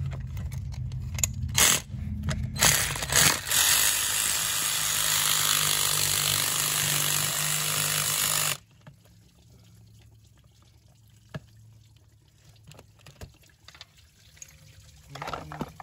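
Engine coolant pouring out of the loosened coolant housing: a steady rush lasting about five seconds that stops abruptly, after a few sharp knocks and a low hum. Faint clicks of parts being handled follow.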